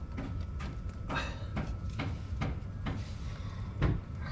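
A run of small irregular clicks and knocks from a flathead screwdriver and the just-removed vent screw with its gasket being handled at an outboard's gearcase, over a steady low rumble.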